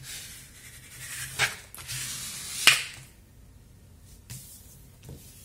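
Hands rubbing and crinkling plastic packaging and paper, a rustle lasting about three seconds with two sharper crinkles, then only a few faint taps.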